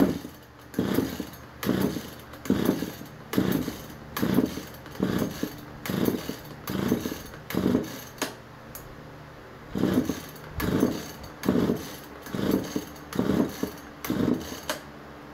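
Husqvarna 440 two-stroke chainsaw being pull-started again and again: about fifteen quick pulls of the recoil starter, roughly one a second with a short pause midway, the engine turning over with each pull but not catching.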